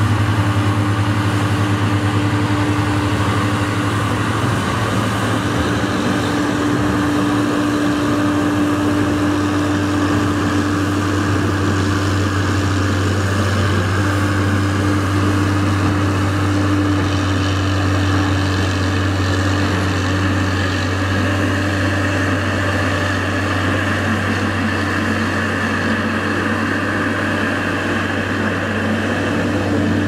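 Caterpillar motor grader's diesel engine running steadily as the grader works its blade through dirt, with a constant low hum and a higher steady tone.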